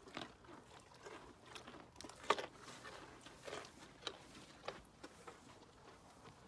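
Ponies crunching and chewing carrots: faint, irregular sharp crunches a few times a second, the loudest about two seconds in, thinning out after about five seconds.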